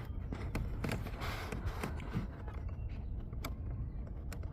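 Scattered light clicks and taps of a door-handle linkage rod being worked into its hole in a car door's latch mechanism, over a low steady rumble.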